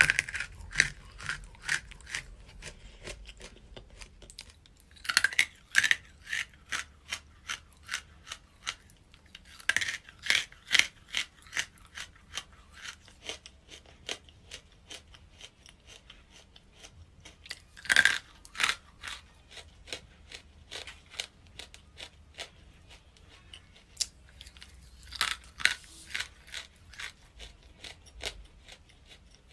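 Chunks of chalky material being bitten and chewed close to the microphone: a loud crisp crunching bite every five to eight seconds, each followed by a run of smaller gritty crunches as it is chewed.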